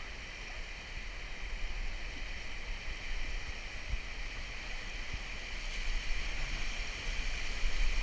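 Steady rush of the Salt River running fast at high water around a raft as it approaches a rapid, with a low rumble of wind on the microphone and a few soft low knocks.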